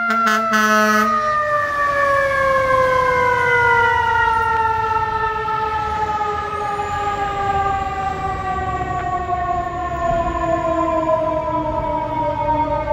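Fire engine's mechanical siren winding down: one long wail that slides steadily lower in pitch, with a brief horn blast at the start and the engine's low rumble underneath.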